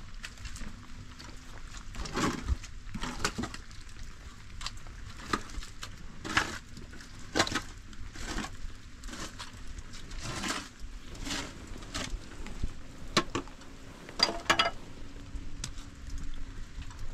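Irregular sharp knocks and clinks, roughly one a second, some ringing briefly, over a faint steady patter of rain.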